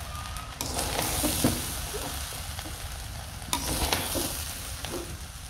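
Sizzling as freshly added lentils fry in the khichuri pot, stirred with a spatula that scrapes and knocks against the pot a few times.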